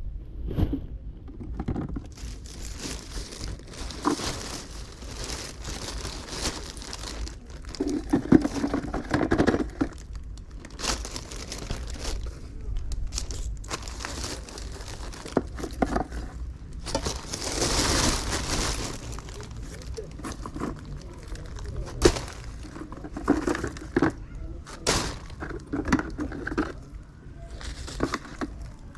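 Scrap metal finds from magnet fishing being handled and sorted: scattered knocks and clunks of metal pieces set down, with crinkling and rustling of bags.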